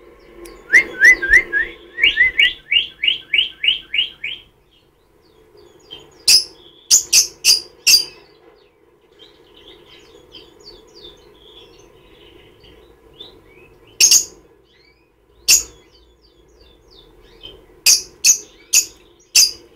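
Peach-faced lovebird chirping: a quick run of about a dozen rising chirps, then soft chatter broken by clusters of loud, very short shrill notes, typical of a lovebird in a tantrum.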